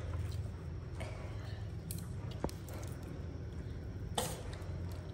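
Quiet mealtime sounds over a steady low hum: a few soft clicks and taps of a spoon and chopsticks against bowls, the sharpest about four seconds in.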